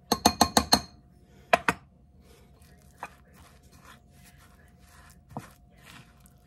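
Metal measuring spoon tapped about five times in quick succession against a glass mixing bowl, with a ringing click each time, to knock off applesauce, then twice more. After that a silicone spatula stirs and scrapes a crumbly oatmeal cookie dough in the bowl, with an occasional knock against the glass.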